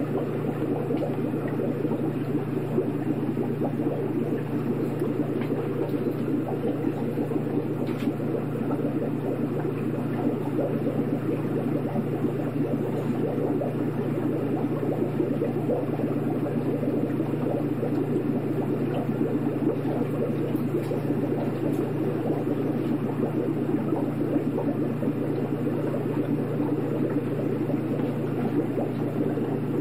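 Aquarium water bubbling steadily over a constant low hum from the tank's filter or air pump.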